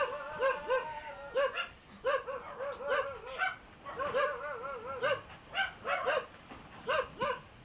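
A dog barking over and over in short, high barks, about three a second.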